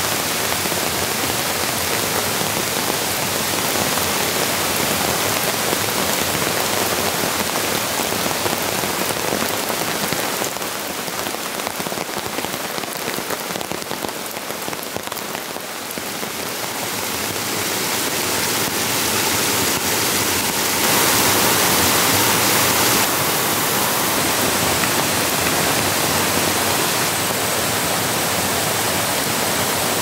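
Steady rain falling, a dense even patter. It eases for a few seconds near the middle and is loudest for a couple of seconds past two-thirds of the way through.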